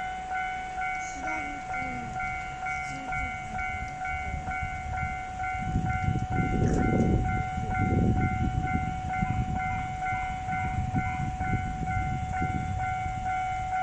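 A Japanese railroad crossing warning bell rings in a repeating 'kan-kan' at about two strikes a second, over a steady tone. An electric train passes over the crossing, its wheels rumbling on the rails, loudest about six to eight seconds in.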